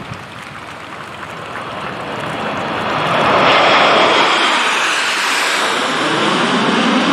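Formation of Aermacchi MB-339 jet trainers flying over low: their jet noise grows over the first few seconds, is loudest about four seconds in, and stays loud as the formation passes overhead.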